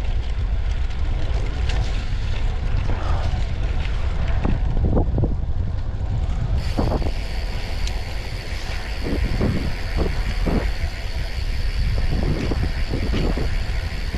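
Wind buffeting an action camera's microphone on a moving bicycle, a steady low rumble. About halfway through, a steady high-pitched hiss joins it.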